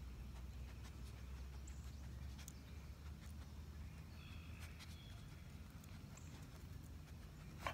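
A dog nosing, sniffing and mouthing at a closed fist holding treats: faint scattered clicks and snuffles over a low steady outdoor rumble, with one sharper click near the end.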